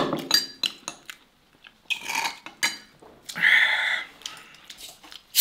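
Ice cubes clinking against a drinking glass as they are stirred with a long stirrer: a quick run of clinks at the start, then scattered clinks and rattles. A short, loud burst of noise comes right at the end.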